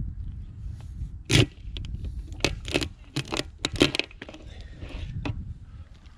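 A run of about six sharp crunching and scraping sounds between one and four seconds in, over a steady low rumble.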